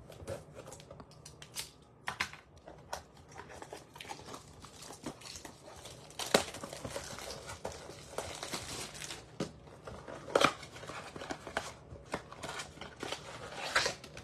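Plastic wrapping crinkling and tearing as it is cut with scissors and pulled off a cardboard trading-card box, with many sharp clicks and crackles. Near the end the cardboard box is torn open.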